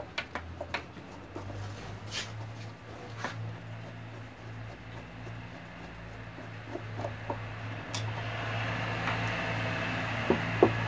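Screwdriver working the screws of an electric stand mixer's gear-head cover, with scattered sharp clicks and taps of metal tool on metal housing. A steady low hum runs underneath from about a second in.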